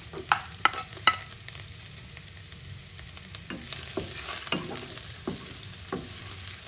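Chopped garlic frying in hot oil in a nonstick pan, stirred with a wooden spatula. A few sharp clicks come in the first second as the garlic goes in. The sizzle grows louder from about three and a half seconds in, with knocks and scrapes from the spatula.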